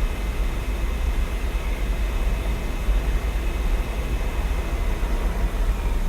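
Dell XPS 13 laptop cooling fan running steadily at high speed: an even whir with a faint high whine, over a low rumble of city noise from outside.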